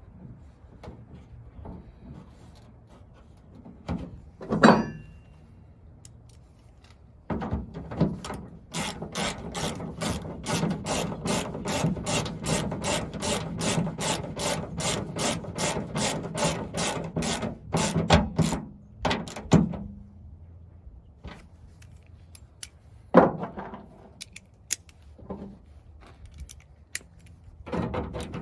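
Ratchet wrench clicking steadily, about three or four clicks a second for roughly ten seconds, as the tailgate handle's bolts are run in, with a few single knocks of tools and parts before and after.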